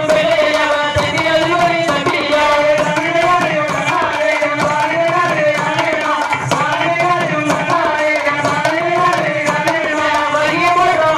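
Kummi folk-dance song: a sung melody over a steady drum beat.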